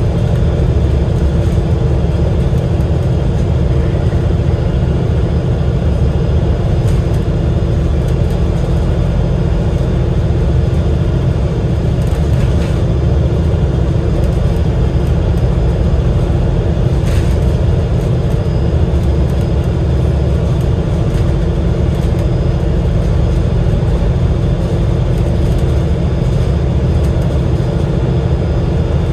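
The Cummins L9E inline-six diesel and Voith DIWA automatic gearbox of an Enviro500 MMC double-decker bus running steadily, heard from on board: a loud, even low rumble with a drone that holds its pitch throughout, and a few faint clicks.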